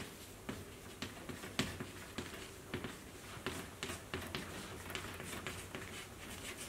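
Chalk writing on a blackboard: faint, irregular taps and short scrapes as each letter is stroked on.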